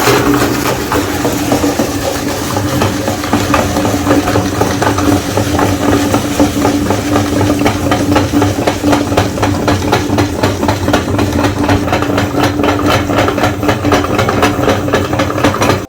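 Electric meat grinder running steadily with a constant motor hum and a dense rapid crackle as it grinds Oreo cookies. It stops abruptly at the end.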